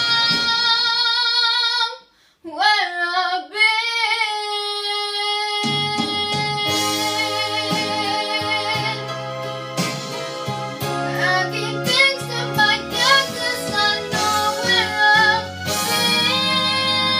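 A girl singing along to a backing track, holding a long note with vibrato. About two seconds in the music breaks off briefly, she sings a few notes on her own, and the accompaniment comes back in about halfway through under her continuing melody.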